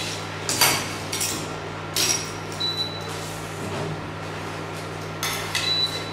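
A metal spoon clinking against a saucepan and a plate while butter sauce is spooned over fish: a few short separate clinks, about half a second in, around two seconds, and again near the end, over a steady low hum.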